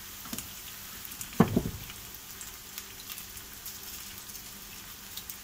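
Diced onion frying in hot oil in a frying pan: a steady sizzle with small crackles. A dull thump about a second and a half in.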